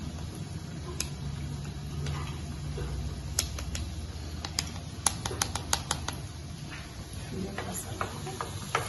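Metal spoon clicking and tapping against a small ladle while grated potato is pressed into it, with a run of quick sharp clicks in the middle. A low steady hum runs underneath.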